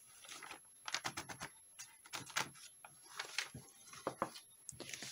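A sheet of stiff, crinkled paper crackling and rustling as it is handled, unfolded and smoothed flat by hand, giving a run of irregular sharp clicks.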